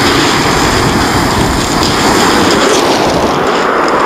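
Rough sea breaking and washing up a shingle beach, with strong wind rumbling on the microphone, a steady loud roar throughout.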